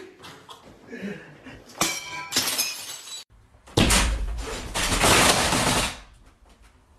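Crashing and breaking: a short shattering crash with a ringing edge about two seconds in, then a louder, longer crash with heavy low thuds as a man jumping on a bed comes down onto it.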